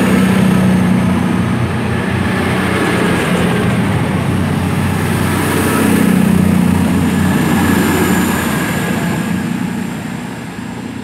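Class 220 Voyager diesel multiple unit pulling away from the platform, its underfloor diesel engines running with a steady low hum. It swells near the start and again about six seconds in, then fades away near the end.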